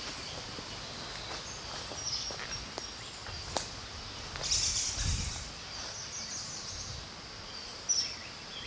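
Outdoor ambience: birds chirping a few times over a steady high insect hum, with a sharp click a little over three seconds in.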